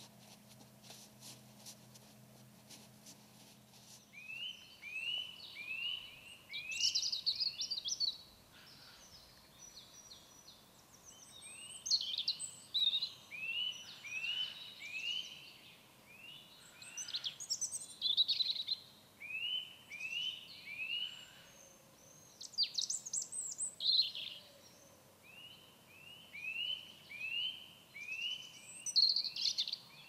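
European robin singing: phrases of quick, repeated rising notes broken by higher rapid trills, starting about four seconds in and repeating every few seconds.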